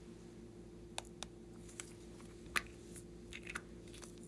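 Hands handling a small plastic candy-shaped container: a few light plastic clicks and taps, the loudest about two and a half seconds in, over a faint steady hum.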